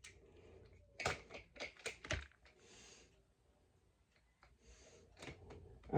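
A few light clicks and taps of hard plastic toy trains being handled and set down, a cluster of them about a second in and a few more near the end.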